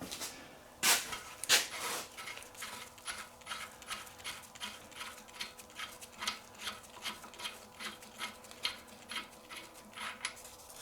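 A harmonic balancer puller being worked on the crank pulley of a Ford 4.0L SOHC V6. There are two louder clacks about a second in, then a steady run of light clicks at about two to three a second as the tool is turned.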